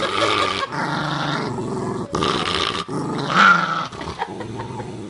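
Dog growling in several long, rough growls, each about a second long with brief breaks between, quieter in the last second.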